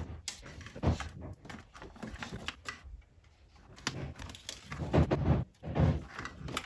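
Plastic wiring-harness connectors and cables being handled and plugged together, giving scattered clicks, knocks and rustles. The loudest knocks come about four to six seconds in.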